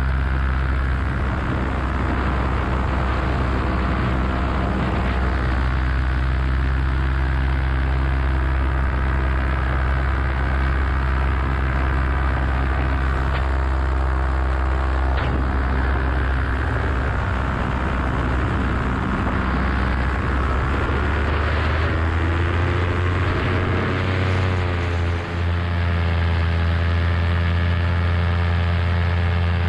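Vittorazi Moster two-stroke paramotor engine and propeller running steadily under power in flight, heard from the pilot's harness. Its note wavers and shifts in pitch about two-thirds of the way through, with a brief dip in level just after.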